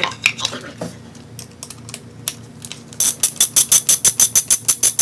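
Ratchet wrench clicking rapidly and evenly, about eight clicks a second, as it turns an engine-cover screw; the run starts about three seconds in. Before it, a few light clicks and taps of handling tools and parts.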